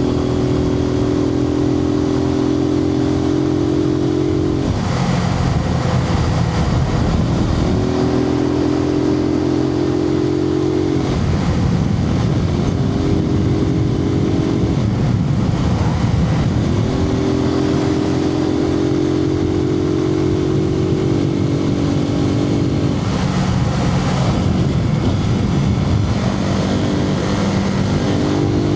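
Suzuki TU250X single-cylinder engine running on the road, heard through a microphone inside the rider's helmet. The engine note holds steady for stretches of a few seconds and drops away several times into wind and road noise.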